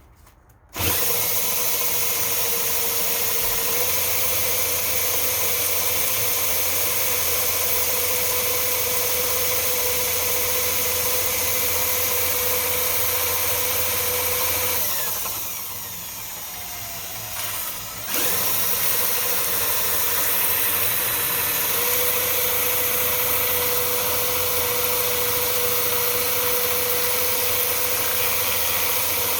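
Electric drill running at a steady speed with a whine, spinning the grooved clutch housing shaft from a Suzuki King Quad 700 on a bolt while sandpaper is held against it to sand out the grooves worn by an overheated wet clutch. About halfway through it runs slower and quieter for a few seconds, then speeds back up.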